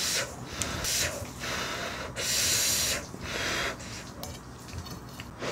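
Wooden spoon stirring and scraping fried rice in a metal pot, in about five short rasping strokes, the loudest a little over two seconds in.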